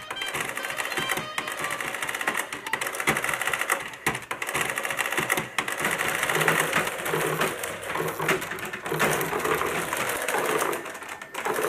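Printing adding machines clattering as their keys are punched and the paper tape prints, a fast, uneven mechanical rattle.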